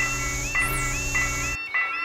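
Japanese railroad crossing warning bell (fumikiri kan-kan) ringing in steady repeated strokes about twice a second, over a droning musical backing that cuts off suddenly about one and a half seconds in.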